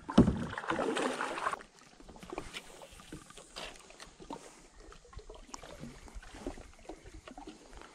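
Water sloshing and lapping against a plastic kayak's hull: a louder splashy rush for about the first second and a half, then quiet lapping with scattered small ticks and knocks.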